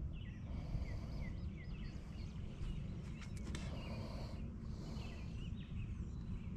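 Outdoor ambience: a steady low rumble of wind on the microphone, with birds chirping in short, quick notes near the start and again near the end. A few faint clicks come about three seconds in.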